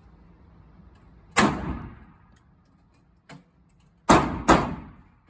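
Gunshots: one loud shot about a second and a half in, a fainter shot later, then two loud shots in quick succession near the end, each with a short ringing tail.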